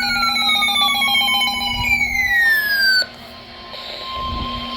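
Emergency alert tones for a new tornado warning: about three seconds of electronic tones sliding downward in pitch over steady tones. They then cut to a quieter, steady single-pitch tone, typical of the NOAA Weather Radio warning alarm tone.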